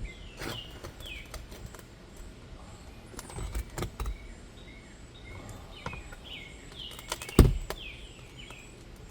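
Hammer prying nails and asphalt shingles loose on a roof: scattered knocks and scrapes, with one heavy thump about seven seconds in. Small birds chirp now and then in the background.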